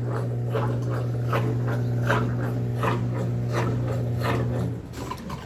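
Washing machine's drain pump running with a steady low hum while pumping water out, with rhythmic puffing gurgles about three times a second; the hum cuts off near the end.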